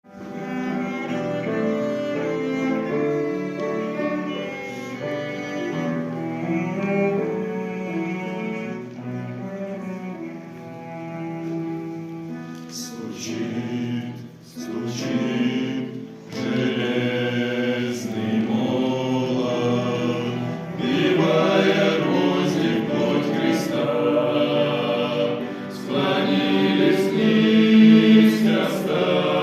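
Men's vocal ensemble singing a hymn in several-part harmony. The opening is held chords, and sung words with clear consonants come in at about 13 seconds.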